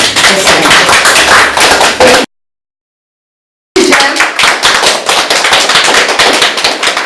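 An audience applauding with dense, loud clapping, broken by a gap of dead silence of about a second and a half, about two seconds in, after which the clapping resumes.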